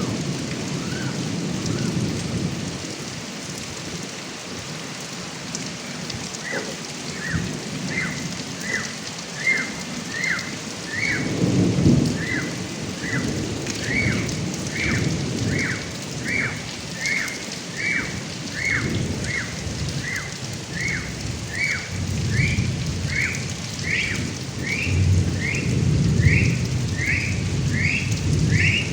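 Heavy rain pouring down, with low rumbles of thunder swelling about twelve seconds in and again near the end. From about a quarter of the way through, a short falling chirp repeats steadily, roughly one and a half times a second.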